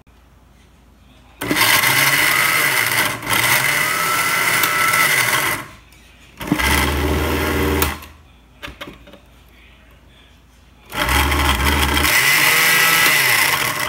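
Hanabishi countertop blender motor running in three bursts, the first about four seconds long, the second short and the third about three seconds. The blades are chopping chunks of raw carrot into small pieces.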